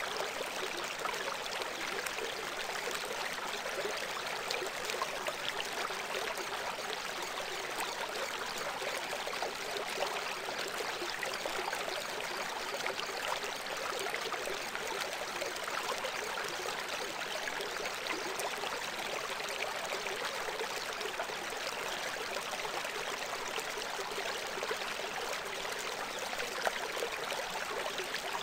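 Steady rushing of running water like a stream, even and unbroken, thin with little bass: the masking sound bed of a subliminal audio track.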